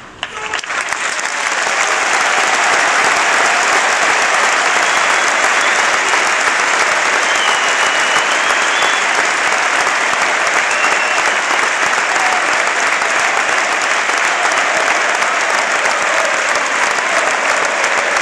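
Football stadium crowd breaking into applause after a minute's silence. The clapping swells over the first two seconds, then holds as steady, dense applause.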